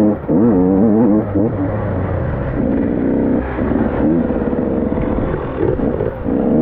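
KTM 85 two-stroke dirt bike engine being ridden hard, its pitch rising and falling over and over with the throttle and gear changes.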